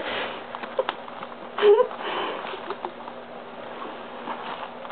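Yorkshire terrier puppies play-wrestling, with snuffling and sniffing breath noises and a short high-pitched yip about a second and a half in.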